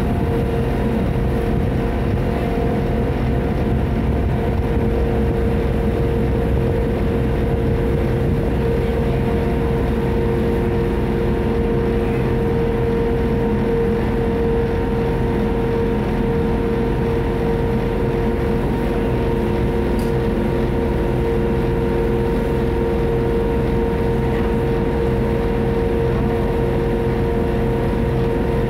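A passenger ferry boat's engine running steadily under way, heard from on board: a constant drone with a steady hum that holds one pitch throughout.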